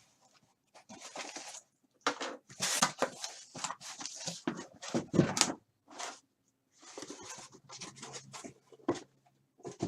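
Cardboard packaging being handled and opened: a sealed case of trading card boxes, with irregular scraping, rustling and tearing at uneven intervals.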